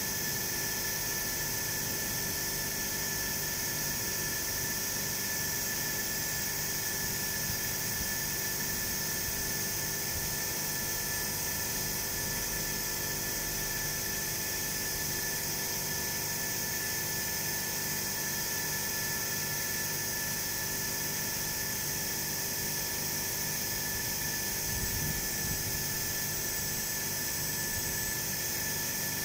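Steady machine noise: a constant high-pitched whine over an even hiss, unchanging throughout.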